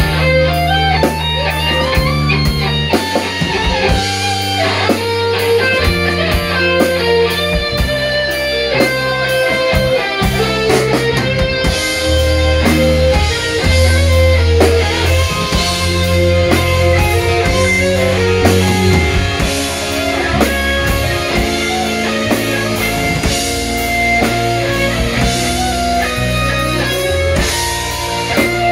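Live rock band playing an instrumental passage, with electric guitar over a drum kit and low bass notes, steady and unbroken.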